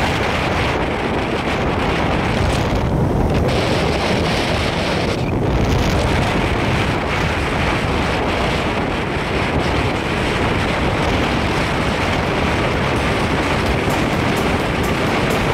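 Wind rushing over the microphone of a moving motorcycle, a loud steady rush.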